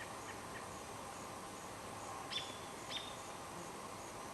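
A small songbird giving two short high chirps about half a second apart, each a quick downward flick ending on a brief steady note, over a faint steady outdoor background hiss.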